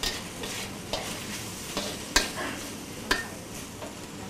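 Pork with sauce, spring onions and chilies sizzling in a wok as it is stir-fried, a metal spatula knocking and scraping against the pan about once a second, the loudest knock a little after two seconds in.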